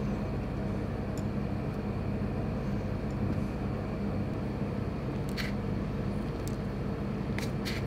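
Steady low machine hum of kitchen room noise, with a few faint light clicks about five seconds in and again near the end.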